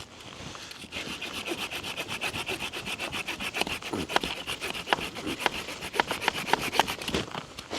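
Hand saw cutting through firewood with rapid, even rasping strokes, starting about a second in and stopping shortly before the end.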